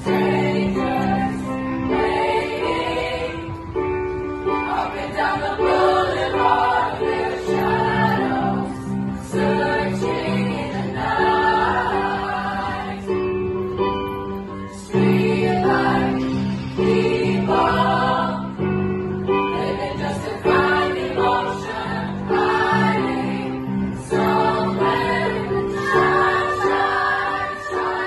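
Junior high school mixed choir singing in harmony, accompanied by an electric keyboard playing repeated low chords.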